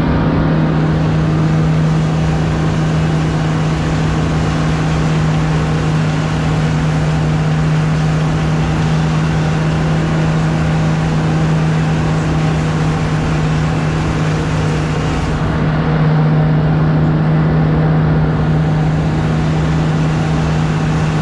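Wakesurf boat's inboard engine running at a constant towing speed, a steady unchanging drone, over the continuous rush of the churning wake.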